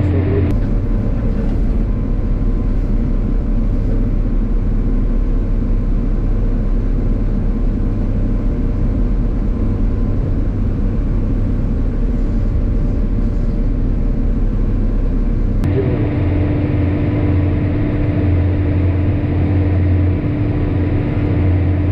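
Heavy diesel farm machinery running steadily with a deep engine drone. The sound changes abruptly about half a second in, to a deeper rumble, and changes back about 16 seconds in.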